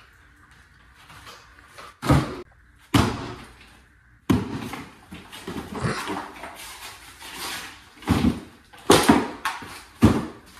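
Sheetrock (drywall) pieces being snapped and dropped into a plastic trash can: a string of sharp knocks with rough crumbling and scraping in between, the knocks coming closer together near the end.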